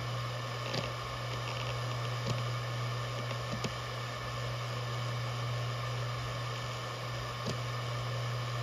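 Maxtor DiamondMax 17 7200 rpm hard drive running with a steady low buzz, which is normal for this model, and four faint clicks of the heads seeking.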